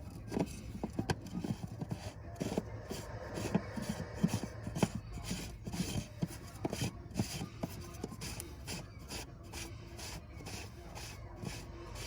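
Fuel filter housing cap on a Ram 3500 diesel being threaded on by hand: irregular rubbing and scraping with short clicks and knocks, busiest in the middle.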